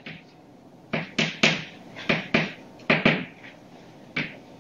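Chalk writing on a blackboard: a series of sharp taps and short scratchy strokes in uneven clusters as letters are written.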